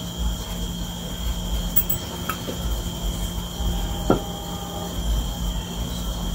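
Steady high-pitched trill of crickets, with a few short knocks from the wooden table as it is handled; the loudest knock comes about four seconds in.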